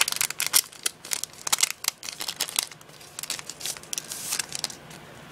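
Foil wrapper of a Yu-Gi-Oh! booster pack crinkling and crackling as it is torn open by hand, in a dense run of sharp crackles that eases off after about three seconds.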